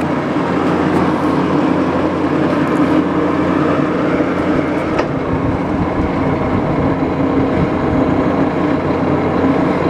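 80-year-old Axelson gear-head lathe running: motor and heavy headstock gears making a steady roar, with a faint click about five seconds in.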